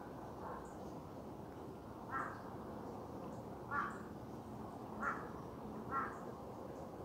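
A crow cawing: a faint caw near the start, then four short, louder caws spaced a second or so apart, over steady background noise.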